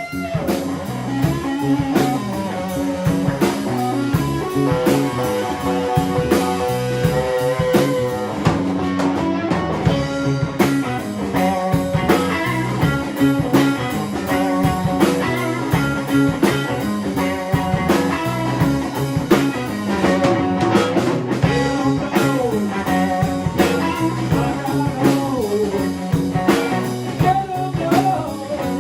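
Live blues-rock trio of electric guitar, bass guitar and drums playing, the guitar carrying lead lines with a long held note and several bent notes over the bass and drum groove.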